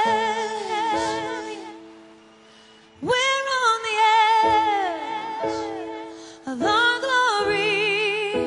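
Woman singing long held notes with wide vibrato over sustained grand piano chords: new phrases come in about 3 and 6.5 seconds in, each starting loud and fading.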